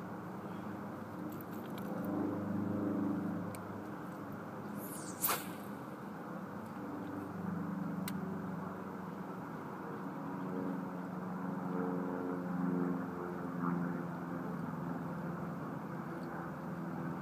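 An engine runs with a low, steady hum that comes and goes, over a constant rushing noise. One sharp knock comes about five seconds in.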